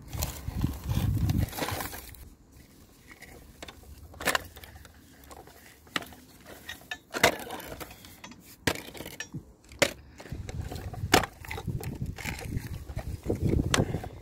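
Rubber toy T. rex handled and pushed through grass and over dry dirt: rustling and scraping, with several sharp clicks and knocks.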